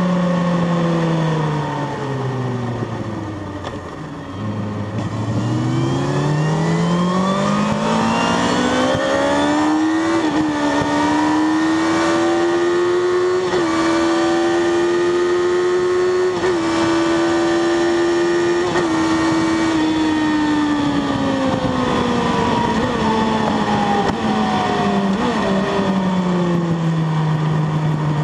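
Sport motorcycle engine heard from the rider's seat: revs fall off into a corner about four seconds in, then climb steadily for several seconds and hold high along a straight with a few brief dips, before falling away near the end.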